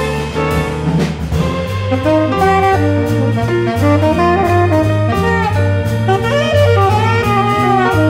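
Tenor saxophone soloing in a live jazz ensemble, over a bass line and drum kit, with strings in the band. About a second and a half in, the bass starts stepping from note to note under the saxophone.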